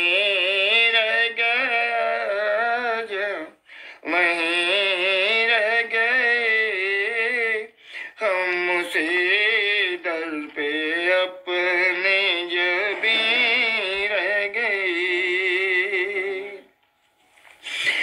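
Solo voice singing an Urdu naat in long, wavering melodic phrases, with no drums or other instruments evident. The phrases break briefly about 4 and 8 seconds in and again near the end.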